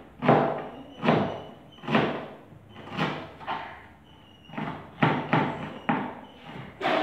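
Knife chopping on a plastic cutting board set on a table: about ten separate heavy knocks, roughly one a second and sometimes two close together, each ringing out briefly.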